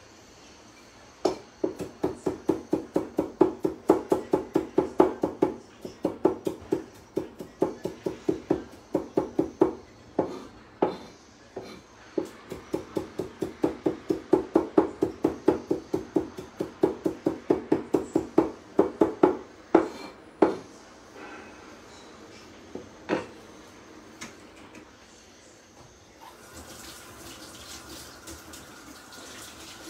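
A knife chopping fresh parsley on a wooden cutting board: quick, even strokes, about four to five a second, with a short pause midway and a few single chops later. Near the end a tap starts running into a sink.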